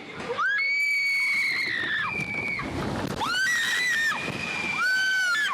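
Log flume riders screaming: several long, high-pitched held screams, one after another, over sloshing, rushing water.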